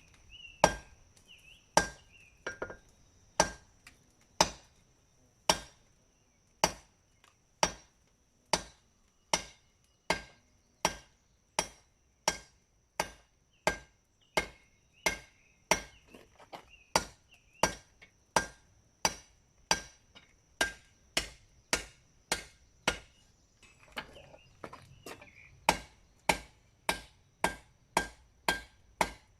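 Hammer blows on a hot katana blade at the anvil, forging in the bevels: steady strikes about one a second, quickening to about two a second near the end, each with a short metallic ring. A faint steady high whine runs underneath.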